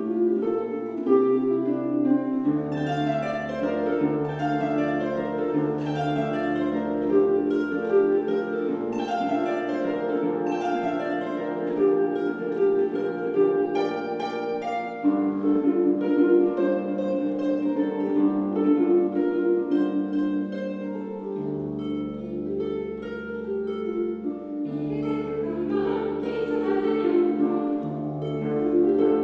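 Celtic harp played solo: a slow traditional air of plucked melody and chords over low bass notes that ring on and change every few seconds.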